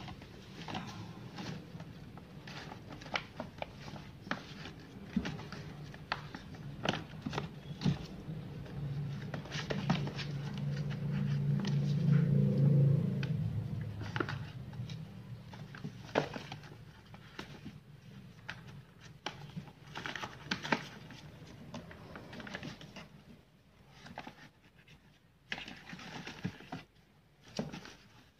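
Sheets of paper crinkling and rustling as two kittens wrestle on them, with many small scratches and taps from their paws, under a low steady hum that swells about ten seconds in and fades a few seconds later. The crackling thins out near the end.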